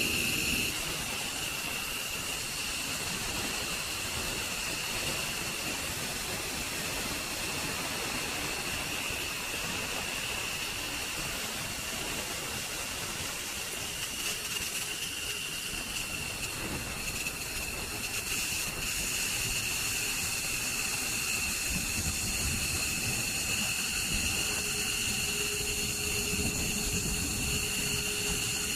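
F-15 Eagle's jet engines running at idle: a steady high-pitched whine over a constant hiss. Near the end a lower steady tone joins and the sound grows a little louder as the jet starts to taxi.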